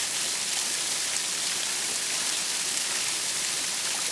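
Water falling from a waterfall, a steady rushing hiss with no breaks.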